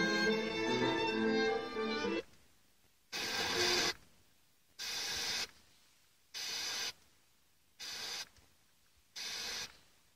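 Car radio in an FM band scan: a station playing violin string music for about two seconds, then cut off as the tuner steps up through the band. Five short bursts of hiss from the speakers follow, about every second and a half, muted to silence in between.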